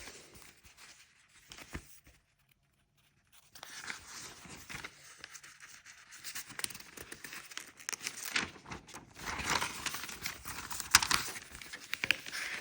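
Paper rustling and crinkling as an instruction booklet is handled and its pages are turned. It starts about three and a half seconds in, after a near-silent opening, and grows louder towards the end.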